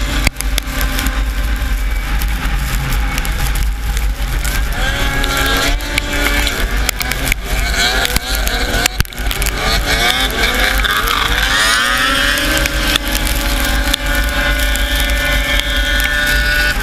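Racing snowmobile engine running hard at speed, its pitch repeatedly rising and dropping as the throttle works, with a heavy low rumble of wind on the microphone and scattered knocks from the sled bouncing over the track.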